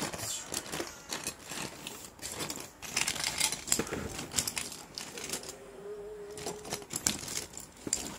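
Loose plastic Lego Bionicle parts clicking and clattering against each other as a hand rummages through the pile, in quick irregular clicks.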